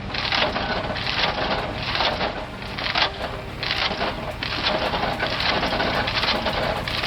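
Wood-cutting machine chopping wood into small blocks, with a rhythmic noisy chop about twice a second over a steady low machine rumble.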